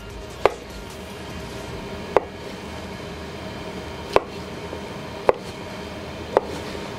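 Chef's knife quartering chestnut mushrooms, each cut ending in a sharp tap of the blade on a plastic chopping board: five taps, spaced unevenly about one to two seconds apart.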